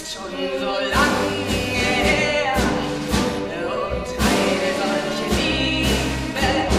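A woman singing a German song on stage, with instrumental accompaniment and a recurring low bass line.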